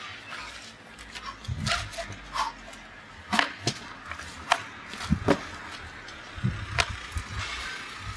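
Irregular knocks and clicks with cloth rustling as a man pulls off a vest and handles a scooter's plastic top box, a few of the knocks dull and low.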